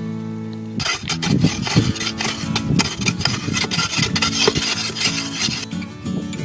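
Rapid, repeated scraping of a digging tool in dry sandy soil, starting about a second in and stopping shortly before the end, over background music.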